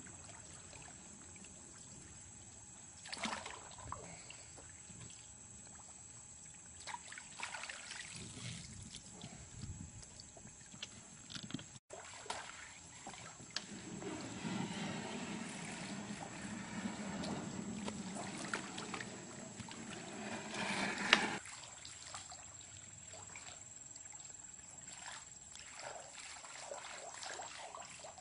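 Creek water sloshing and trickling around a person wading through it, with a few short splashes. A longer stretch of sloshing builds about halfway through and ends in a sharper splash.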